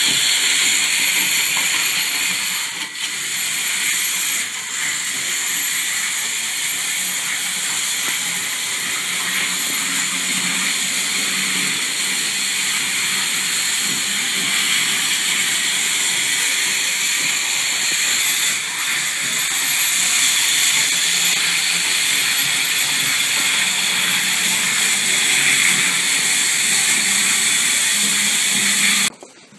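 Electric model train running on its track: a steady, hissing whir from the motor and wheels that drops away abruptly near the end.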